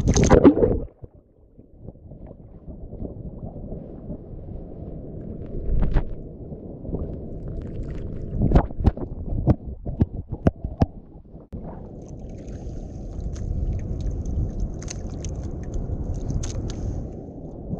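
Wind rumbling on the microphone and water moving around a small wooden outrigger boat at sea. There is a loud splashy noise right at the start and a run of sharp knocks about halfway through.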